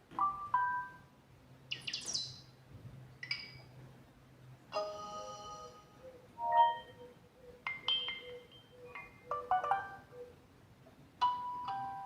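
Samsung Galaxy S2 notification tones played one after another: about eight short electronic chimes, jingles and chirps, most under a second long, with short pauses between them.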